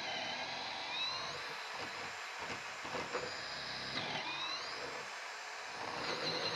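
Hilti SF 6H-A22 cordless drill boring a fluted bit through a wood beam and drawing it back out. Its motor whine drops under load and rises again as it frees up, about twice, while the bit chews through wood and the flutes pack with chips.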